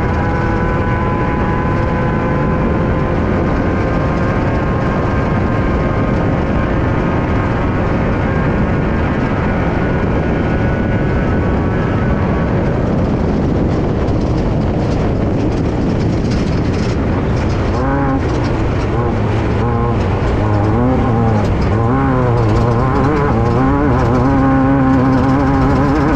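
In-car sound of a Class 5/1600 Baja Bug racing, its air-cooled 1600 cc VW flat-four held at steady high revs, then rising and falling with repeated lifts and throttle changes over the last several seconds. A constant rush of wind, tyre and chassis noise runs underneath, with knocks and rattles from the bumpy track in the second half.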